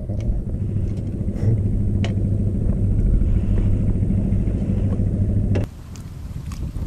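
A motor engine running steadily with a low, even hum, cutting off abruptly about five and a half seconds in.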